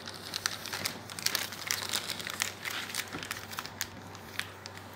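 Clear plastic film crinkling and crackling in irregular bursts as fingers pull at and smooth the bag wrapped around a model locomotive.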